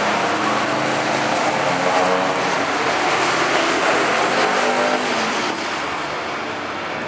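Engines of a line of classic sports cars passing together on a race circuit, several engines running at once with their notes overlapping and shifting.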